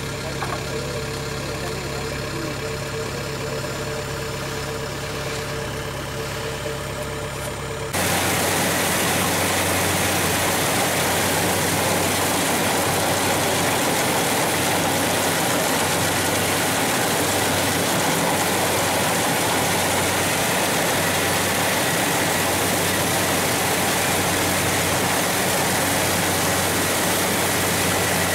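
An engine idles with a steady hum. About eight seconds in there is a sudden switch to the louder, steady rushing noise of a rice combine harvester running as its reel and header cut through standing rice.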